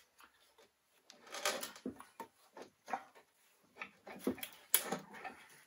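Aluminium crankcase halves of a Lycoming O-360 aircraft engine being worked apart by hand: a string of irregular light knocks and scrapes of metal on metal, the loudest clunk near the end.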